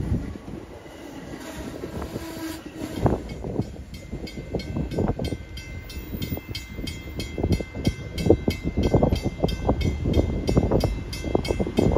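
CT Rail commuter train rolling through the station at close range, its wheels clattering and thumping over the rail joints over a low rumble. The clatter grows denser and louder in the second half.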